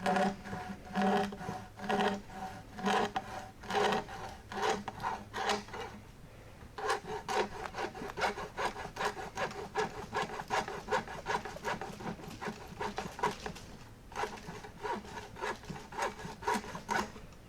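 Old hacksaw cutting through rubber radiator hose in steady back-and-forth strokes. The strokes pause briefly about six seconds in, then resume quicker until the hose is cut through near the end.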